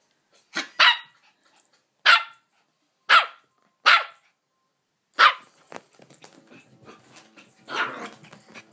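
Yorkshire terrier cross bichon frise puppy yapping in about seven short, sharp barks, roughly a second apart, with a quick double bark at the start and a longer bark near the end.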